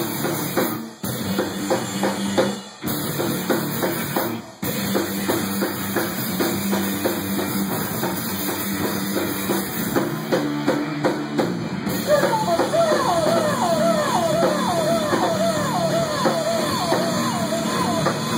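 A rock band playing, the drum kit prominent, with three brief stops in the first five seconds. About twelve seconds in, a fast, repeated high melodic line with bending pitch comes in over the band.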